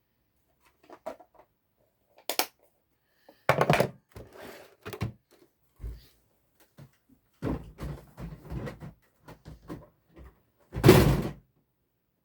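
Irregular knocks, clunks and handling noises of hard objects being moved and set down on a surface, with a louder run of clatter in the middle and the heaviest thud near the end.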